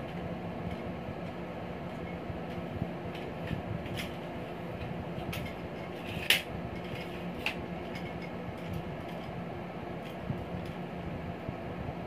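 A handful of sharp plastic-and-metal clicks and taps as a light aluminium tripod's clamps and center column are handled, the loudest about six seconds in and another about a second later, over a steady background hum.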